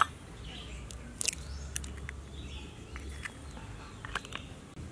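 An eggshell being cracked and broken open by hand over a hollowed sweet potato: a few sharp crisp cracks and clicks at the start and about a second in, then lighter taps of shell.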